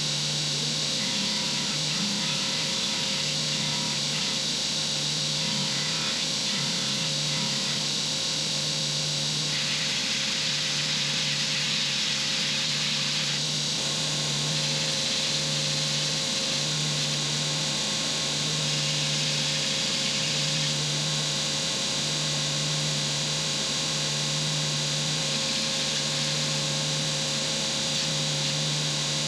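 Belt grinder running with a steady motor hum while a wooden axe handle is sanded against the abrasive belt, the rasp of the belt on wood rising and easing as the handle is worked.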